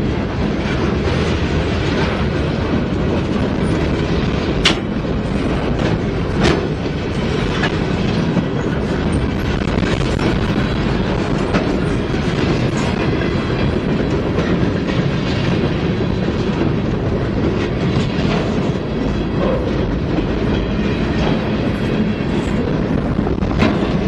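Norfolk Southern freight train's cars rolling past close at speed: a steady, loud rumble of steel wheels on rail, broken by a few sharp clanks about five and six and a half seconds in and again near the end.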